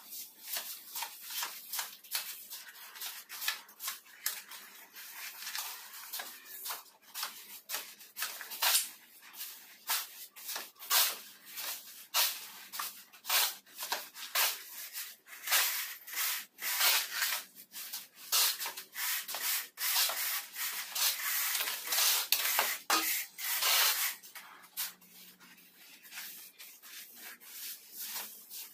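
Shovel, hoe and hand trowel scraping and spreading sand-and-cement mortar over a floor, in many irregular gritty strokes, busiest through the middle and easing off near the end.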